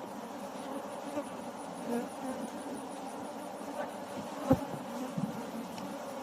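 Bees buzzing steadily in a mass around an open hive, with a single sharp knock about four and a half seconds in.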